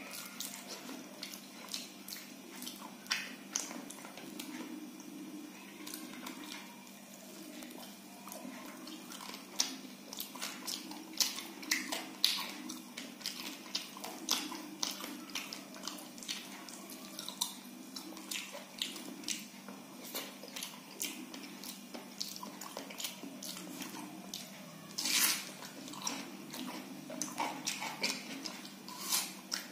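Close-miked eating sounds: wet chewing and lip-smacking of someone eating soft khichdi and fried fish with the hand, a dense scatter of short mouth clicks, over a steady low hum. A louder, longer click stands out near the end.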